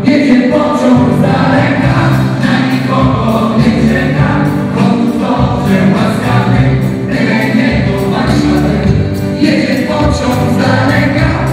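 A song with singing plays loudly over the reception's loudspeakers as dance music.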